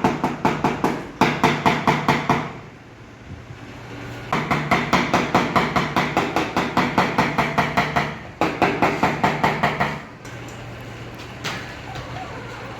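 Rapid light hammer taps on a car body panel, knocking down the repaired dent in paintless dent repair, about six strikes a second. The tapping runs in bursts, pausing for about two seconds after the first two, and stops about ten seconds in.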